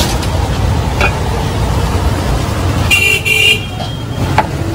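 Steady road-traffic rumble from a busy street, with a high-pitched vehicle horn tooting twice in quick succession about three seconds in. A couple of sharp clicks, the loudest near the end.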